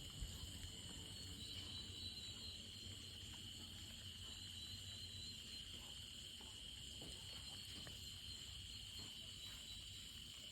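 Faint night ambience: a steady, high insect chorus of crickets, over a low hiss.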